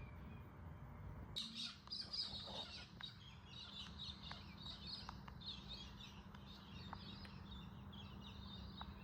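Birds chirping, a busy run of short overlapping calls that starts about a second and a half in.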